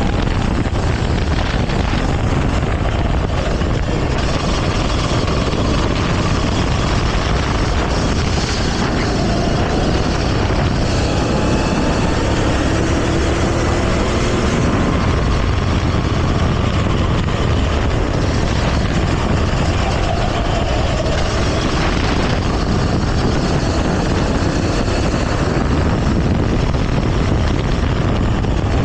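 Go-kart engine running hard during a race, its pitch rising and falling as the throttle comes on and off, over a steady loud rushing noise.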